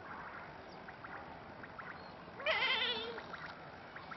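A single wavering animal call about a second long, a little past the middle, with a few faint short chirps just before it.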